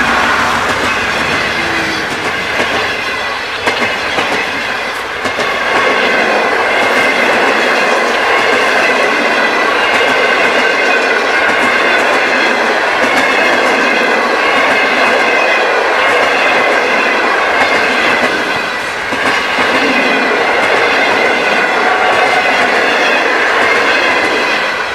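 Passenger carriages of a train rolling past close by, their wheels clattering over the rail joints with a steady high metallic squeal from wheels on rail.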